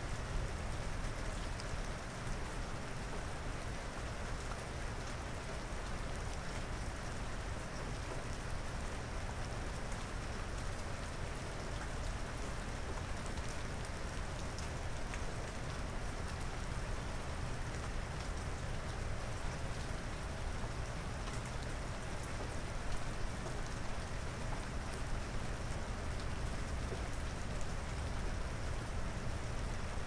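Steady rain falling, an even wash of many fine drops.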